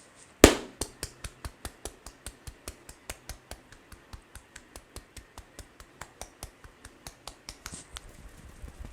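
Head massage percussion: the masseur's hands strike the head with one loud sharp crack, then keep up a steady run of crisp clicks, about five a second, that stop near the end.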